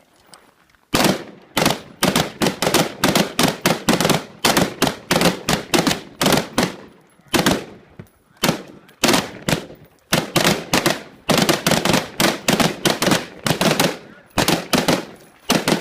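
Rapid semi-automatic gunfire: dozens of sharp single shots fired in quick, uneven strings of about two to four a second, starting about a second in, with brief pauses between strings.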